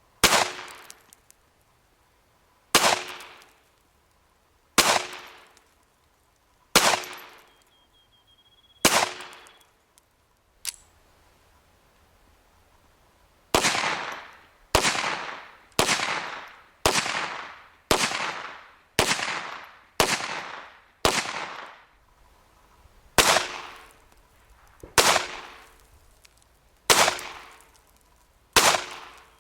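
Smith & Wesson Model 41 .22 semi-automatic pistol being fired: seventeen sharp shots, each trailing a long echo. They come about two seconds apart at first, then a quicker string of eight about a second apart, then slower again.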